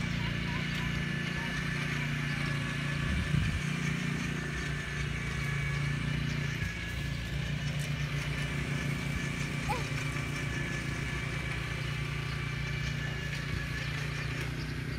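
Small gasoline engine of a powered tiller/cultivator running steadily, with a short louder thump about three seconds in.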